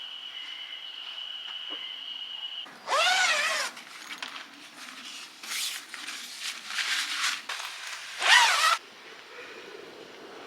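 A zipper being pulled in four rasping strokes, the longest about three seconds in and the loudest near the end.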